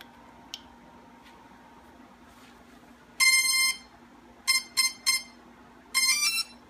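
Quanum Nova / CX-20 quadcopter's brushless motors and speed controllers sounding their power-up tones as the flight battery is connected: one long tone, three short beeps, then a quick rising run of notes. A small click about half a second in as the battery connector goes in. The tones sound as they should at power-up.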